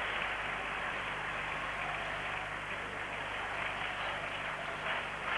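Arena crowd noise during a table tennis rally, a steady wash of many voices that turns into clapping near the end, over a steady low hum on the old recording.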